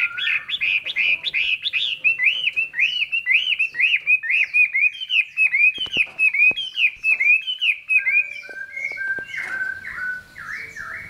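Chinese hwamei singing: a long run of quick, repeated whistled notes that rise and fall, about three a second, turning to lower, flatter notes near the end.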